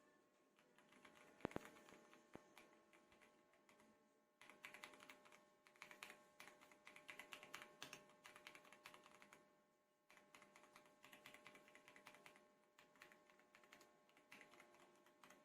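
Typing on a Royal Kludge RK R75 gasket-mount mechanical keyboard: rapid runs of key clicks, with a brief pause about ten seconds in before the typing resumes.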